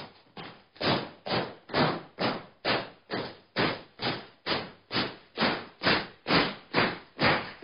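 A steady run of noisy percussive hits, a little over two a second, each struck sharply and dying away. They get louder about a second in.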